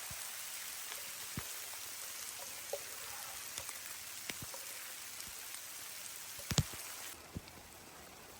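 Steady rain falling: an even hiss with scattered sharp drips, the loudest a close pair about two-thirds of the way through. The hiss drops in level near the end.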